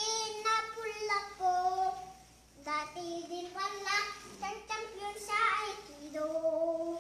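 A child singing alone without accompaniment, in long held high notes, with a short pause for breath about two seconds in.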